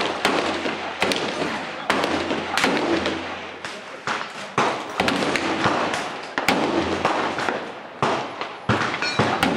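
Gunfire from several guns on a firing line: about a dozen sharp shots at irregular intervals, some louder and closer than others, each with a short echoing tail.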